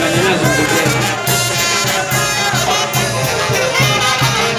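Festive band music with horns over a steady, regular beat, the horn lines growing stronger about a second in.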